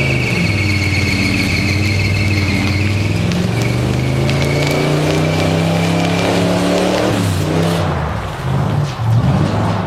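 Car engine running under load while driving, its pitch rising and stepping as it goes through the gears, easing off about three-quarters of the way in. A high steady whine sits above it for the first half.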